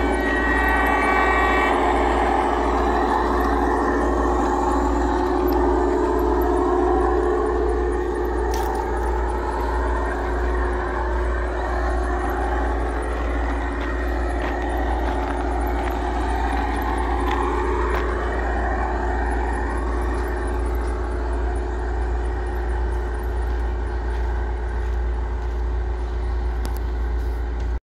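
A vehicle running steadily with a deep rumble and shifting mid-pitched whines. A horn-like note dies away in the first two seconds.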